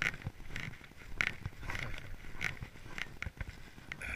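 Footsteps crunching through snow at a steady walking pace, a little under two steps a second.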